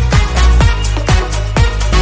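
Background electronic dance music with a steady kick drum, about two beats a second, over heavy bass and sustained synth chords.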